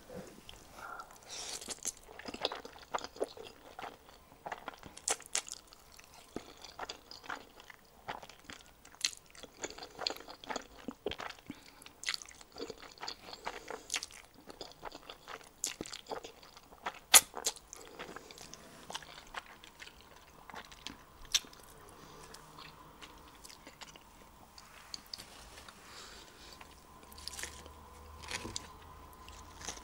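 Close-miked eating of black bean sauce (jjajang) instant noodles: irregular wet chewing, smacking and slurping sounds with sharp mouth clicks, busiest in the first two-thirds and quieter afterwards.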